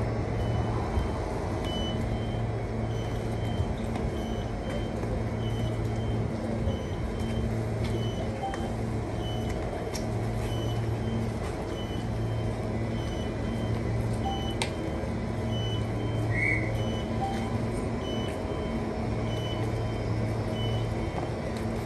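Queensland Rail electric suburban train standing at the platform: a low hum from the train pulses on and off every second or two. Over it, a short high beep repeats about every three-quarters of a second.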